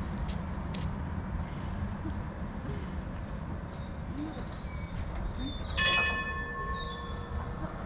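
Steady low rumble, then about six seconds in a single sudden ring of a tram's warning bell, which rings on and fades over about a second and a half.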